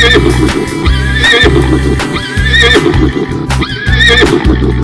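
Upbeat background music with a steady bass beat and a high, warbling, whinny-like figure that repeats about once a second.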